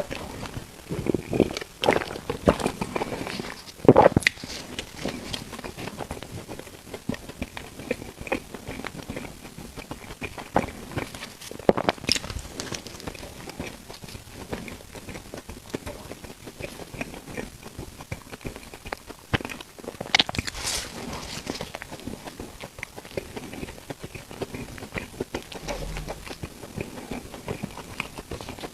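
Close-up chewing of food, with irregular wet smacks and clicks and a few louder crunchy snaps.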